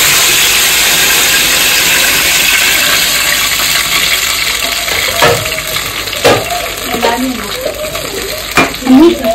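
Thick ground haleem paste sizzling as it is poured into a pot of hot oil: a loud hiss that starts suddenly and slowly dies down. A wooden spoon knocks against the aluminium pots three times in the second half as the paste is scraped out.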